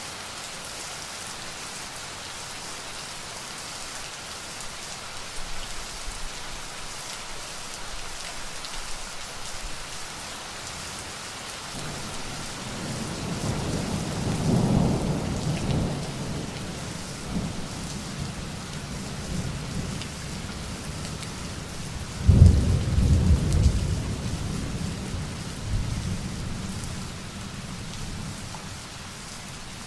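Steady rain falling, with two rolls of thunder: a rumble that swells a little before halfway and fades, then a sudden, louder clap about three-quarters of the way in that rumbles away over a few seconds.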